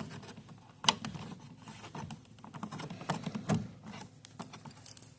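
Scattered small clicks and taps of parts being handled, with one sharp click about a second in.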